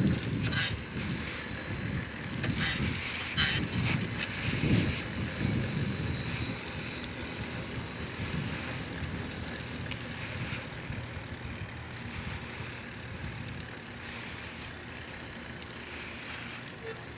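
Wind buffeting a phone's microphone and road noise from a bicycle being ridden, with a few sharp rattles in the first few seconds. The noise eases off near the end as the riders stop.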